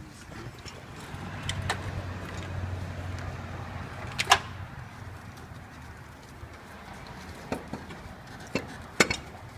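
Scattered clicks and knocks of hands and tools working at an engine wiring-harness plug. The sharpest comes about four seconds in and a pair near the end, over a low hum in the first few seconds.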